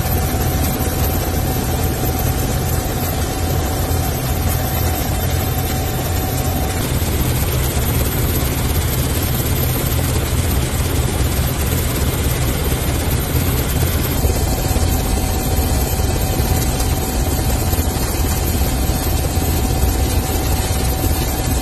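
Helicopter in flight: a steady drone of rotor and engine, heaviest in the low end. A thin steady whine rides on top, drops out for several seconds in the middle, and comes back.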